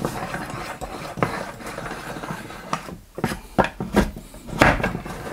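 Two-handed wood-carving knife cutting into a clamped wooden board: a scraping, shaving sound of the blade through the wood, with several sharp knocks along the way.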